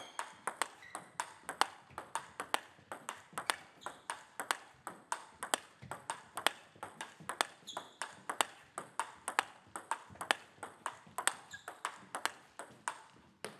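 Table tennis forehand rally: celluloid-type ball clicking off bats and table in a steady run of sharp ticks, about three a second.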